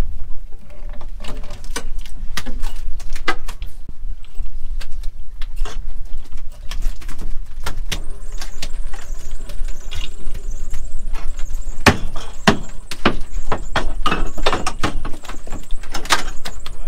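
Working deck of a cod jigging boat at sea: a steady low rumble under irregular knocks and clatters, with a thin high whine joining about eight seconds in.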